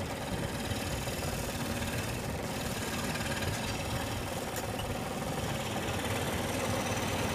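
Scroll saw running steadily, its blade reciprocating rapidly as it cuts through wood.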